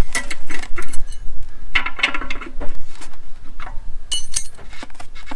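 Metal clinking and clattering as tools and plumbing fittings are handled, a run of short knocks with brief ringing.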